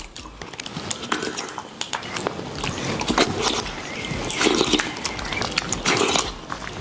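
Curd rice squished and mixed by hand on a banana leaf, then eaten by the handful with wet smacking and slurping mouth noises; many short clicks throughout.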